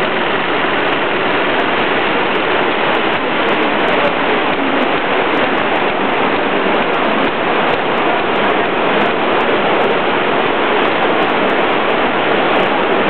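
Steady, loud hiss-like background noise of a busy exhibition hall, even throughout.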